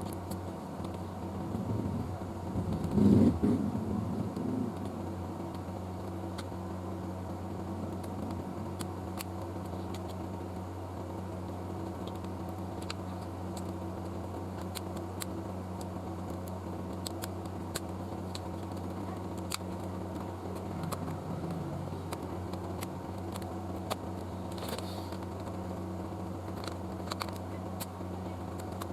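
Steady electrical hum of workbench equipment, with scattered light clicks and a brief louder rustle of handling about three seconds in.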